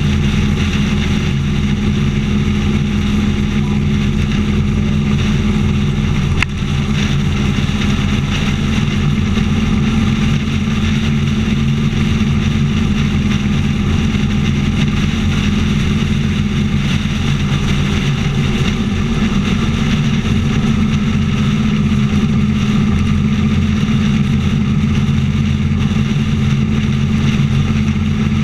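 Motorcycle engine running steadily at highway cruising speed, heard from on the bike itself, with wind and road noise over it.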